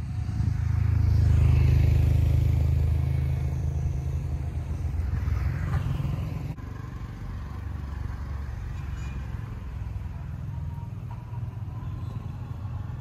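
Motor vehicle engine noise: a low, steady hum that swells loudest in the first few seconds and then eases back. About six and a half seconds in it drops suddenly to a quieter, even hum.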